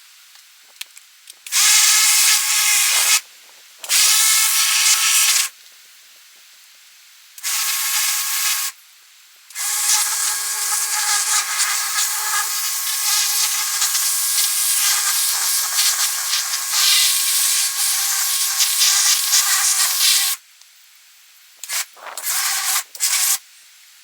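Electric pressure washer spraying in bursts: a hiss of water jet over the pump motor's whine, cutting in and out sharply as the trigger is squeezed and released. Five bursts, a long one of about ten seconds in the middle.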